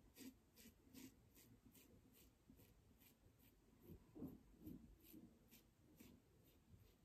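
Faint, quick scraping strokes of an adjustable double-edge safety razor with a Feather blade cutting through lathered stubble on the cheek, about two or three strokes a second, with a soft low thump about four seconds in.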